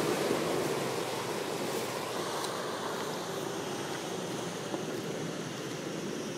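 Off-road SUV driving away along a muddy track: a steady rush of engine and tyre noise that slowly fades as it gets farther off.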